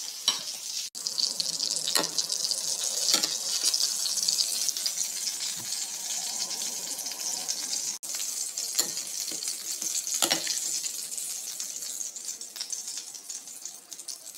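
Steady hiss of running water, with a few light knocks and clatters scattered through it.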